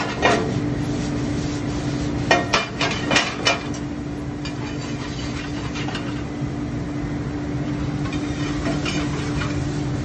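A metal spoon clinking and scraping against a stainless steel sauté pan as mushrooms, shallots and garlic are stirred, with a cluster of clinks about two to three and a half seconds in. A steady low hum runs underneath.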